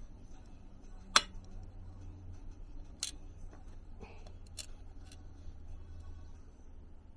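Sharp clicks of small hard parts being handled, four in all, the first, about a second in, much the loudest; a low steady hum runs underneath.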